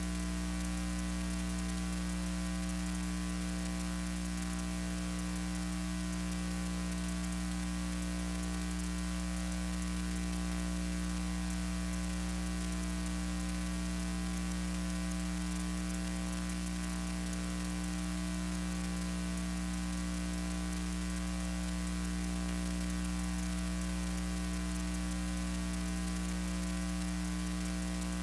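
Steady electrical mains hum with an even hiss, unchanging throughout.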